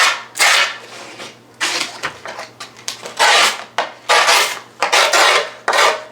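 Tool scraped in repeated strokes along skateboard grip tape at the deck's edge, marking the outline of the board before the tape is cut. About seven rasping strokes, each roughly half a second long.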